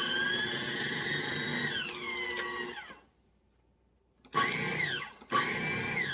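KitchenAid 13-cup food processor pulsed three times, its blade whirring through dry flour, salt and sugar. The motor whine drops in pitch as it coasts down after each pulse. The first pulse is the longest, and after a short pause two quicker pulses follow.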